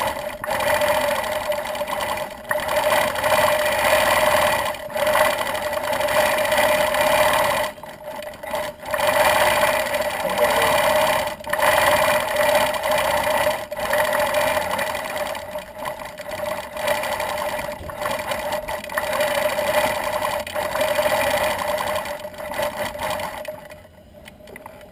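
Gammill longarm quilting machine stitching, a steady running hum with the needle going, broken by short pauses now and then as the feathers are stitched, and stopping about a second before the end.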